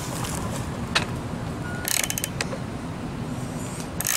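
Socket ratchet wrench clicking as it tightens the kingpin nut on a skateboard truck: a single click about a second in, then quick runs of clicks about two seconds in and near the end.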